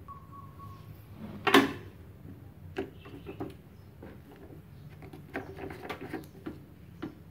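Plastic-and-metal handling clunks and clicks as a MIG torch's connector is pushed into and screwed onto the front socket of an inverter welding machine. One sharp knock comes about a second and a half in, followed by a run of lighter clicks and knocks.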